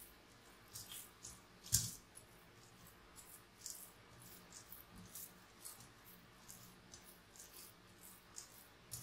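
Soft, sticky, oiled yeast dough being kneaded by hand in a glass bowl: faint, irregular squelches and tacky slaps, with one louder knock about two seconds in.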